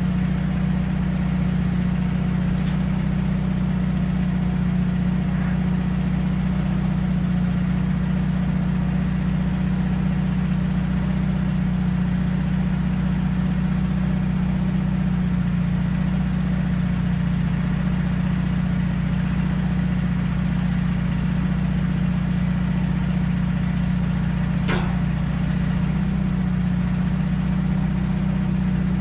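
Ford E350 bucket van's engine running with a steady low drone while its Telsta bucket lift works the boom. A single sharp click near the end.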